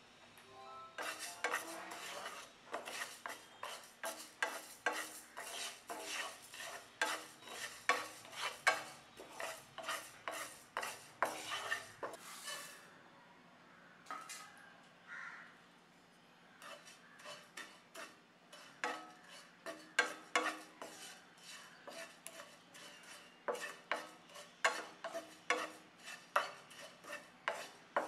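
A spatula stirring dry moong dal around a nonstick frying pan in quick, repeated scraping strokes, the grains rattling on the pan. After a quiet gap of a few seconds near the middle, the stirring starts again, this time on dry flattened rice (poha).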